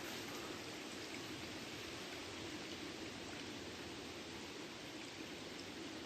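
Faint, steady rush of a small forest creek's running water.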